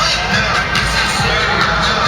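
Music playing, with a crowd shouting and cheering over it.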